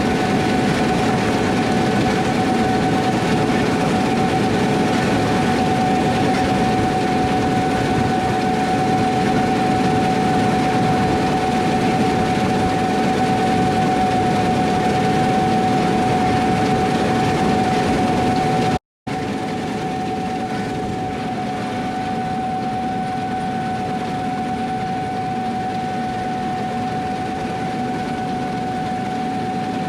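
Combine harvester running steadily under load, a constant drone with a steady high-pitched whine over it. It drops out for an instant about two-thirds of the way through and resumes slightly quieter.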